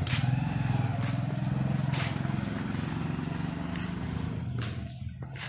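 An engine running steadily with a low hum, fading gradually as it draws away, with a few light footsteps on concrete.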